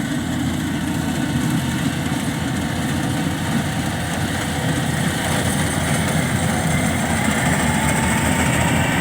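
Engine of a rice-harvesting machine running steadily, growing slightly louder in the second half.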